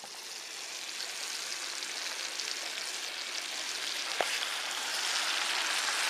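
Bacon frying in oil in a pan, a steady sizzle that grows slowly louder, with one sharp pop about four seconds in.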